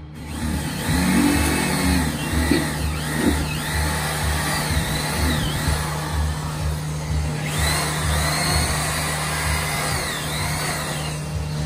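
Background music with a steady low pulsing beat under a held drone and a high melodic phrase that rises and falls, the phrase played twice.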